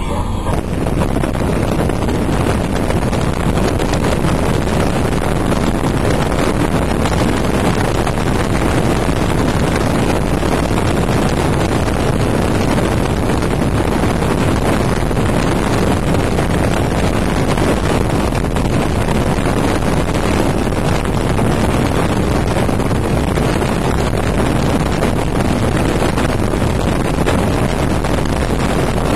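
Steady, loud rushing noise inside a moving car's cabin: wind and road noise.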